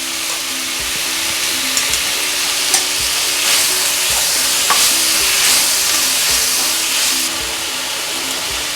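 Onion and tomato masala sizzling in hot oil in a pan as it is stirred, with occasional spoon clicks against the pan; the sizzle grows louder for a few seconds in the middle.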